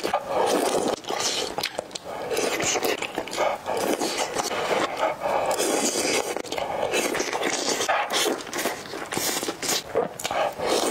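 Close-miked eating sounds: wet chewing and slurping of spicy, saucy food and noodles, a quick irregular run of mouth noises that never stops.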